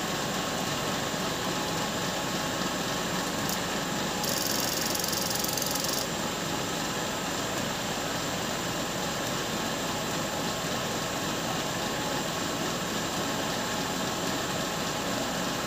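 E-rickshaw electric motor running steadily at speed on a generator test rig: an even hum with several steady whining tones. A brief high hiss joins about four seconds in and lasts about two seconds.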